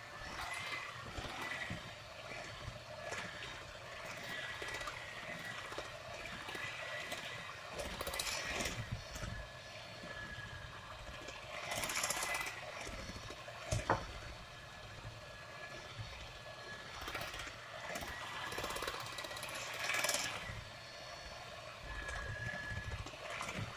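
Electric hand mixer running with a steady whine, its beaters whisking pancake batter in a glass bowl, with a few brief louder bursts of noise where the beaters catch the batter and the bowl.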